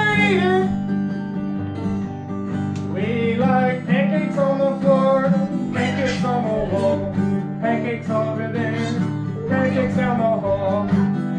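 Acoustic guitar strummed in steady chords, with a voice singing a wavering melody over it.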